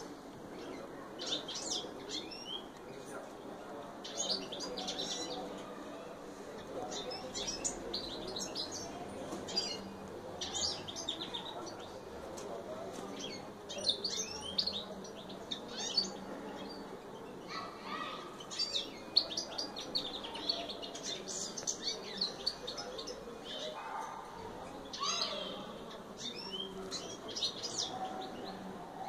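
Red-factor canaries chirping in short bursts of rapid high notes, every second or two throughout.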